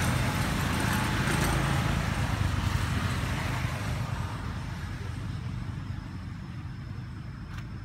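A motor vehicle's engine running steadily, growing fainter over several seconds as it moves off.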